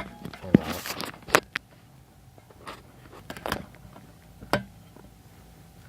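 Scattered clicks, knocks and light scrapes from handling tools and the metal parts of a tin can muffler being taken apart. The sharpest knocks come about half a second and a second and a half in, with a few more later.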